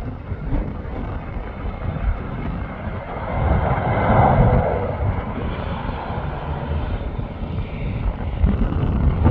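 Landing jet airliner passing on approach: its engine noise swells to a peak about four seconds in, then eases away. A steady low rumble of wind on the microphone runs underneath.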